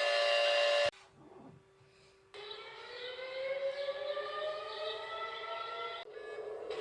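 Emergency alert siren. A steady multi-note siren tone cuts off abruptly about a second in, and after a brief lull a siren winds up again with slowly rising pitch.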